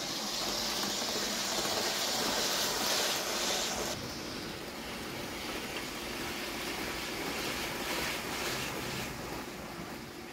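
Hornby OO gauge class 390 Pendolino model train running on track: a steady whirring hiss of its motor and wheels on the rails. It is louder for the first four seconds, then drops back, with a few faint clicks a little over two-thirds of the way in.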